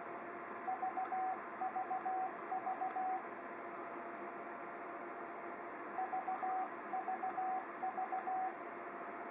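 Ten-Tec Eagle transceiver's CW sidetone keying "VVV" in Morse code (three dits and a dah, three times over) as a test transmission into a dummy load. The group comes twice, about a second in and again past the middle, over a steady hiss.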